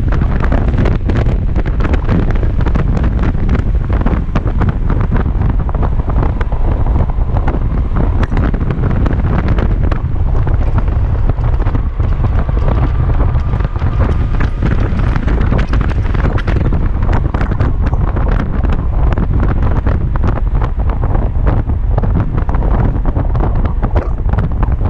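Heavy wind buffeting on the microphone of a Kymco Xciting 250i scooter riding at speed, a steady roar with its single-cylinder engine mostly buried underneath. A faint whine rises slightly in pitch through the middle.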